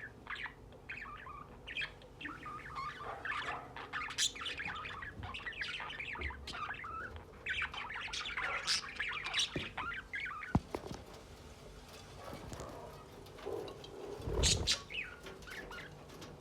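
Pet lovebirds chirping and squawking in rapid, shrill calls. The calls thin out after about ten seconds, then a short burst of calls with a low thump comes near the end.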